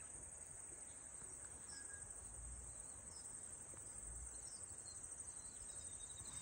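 Insects chirring in a steady, high-pitched continuous trill.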